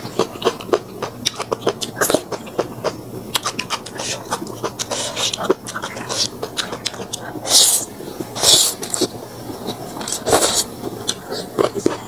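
Close-miked chewing and lip smacking while eating noodles and crispy fried fish: a rapid run of wet clicks and smacks, with three louder crunchy, hissing bursts in the second half.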